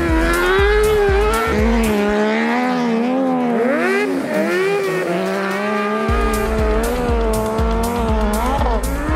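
Race car engine revving hard, its pitch swinging up and down as it accelerates and lifts off, over background music with a steady bass beat. The beat drops out for a few seconds in the middle.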